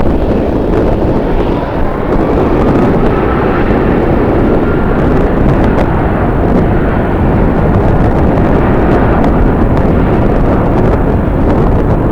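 Jet airliner engines running, with a faint whine that rises slightly a few seconds in, heavily buffeted by strong wind on the microphone.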